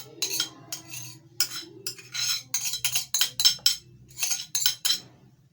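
Kitchen utensils and dishes clinking and clattering, a quick run of sharp knocks and short rattles.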